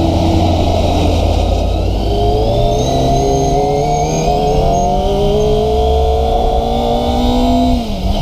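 Kawasaki ZX-25RR's 250 cc inline-four engine accelerating under way: after a steadier first couple of seconds, the revs climb smoothly for about five seconds, then the pitch drops sharply near the end.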